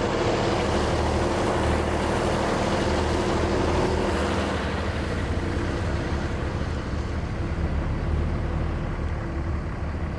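Heavy farm machinery working the potato harvest, its engines running in a steady, continuous drone with a constant hum.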